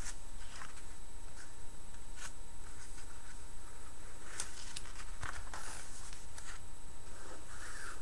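Glossy magazine pages being handled and turned by hand: soft rustles and small paper crackles, with the page turned twice. A steady low hum runs underneath.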